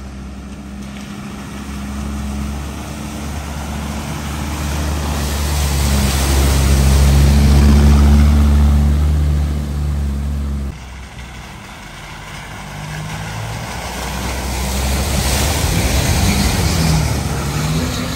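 4x4 vehicles driving through a deep, fast-flowing flooded ford: each engine runs with a low hum while the water rushes and sprays off the wheels. The first crossing builds to its loudest about eight seconds in, then cuts off sharply. A second crossing builds up towards the end.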